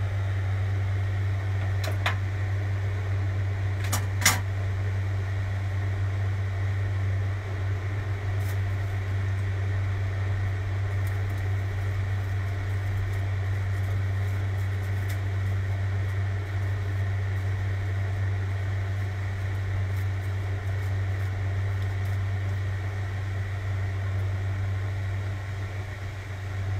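A fan running with a steady low hum, and a few sharp clicks in the first few seconds.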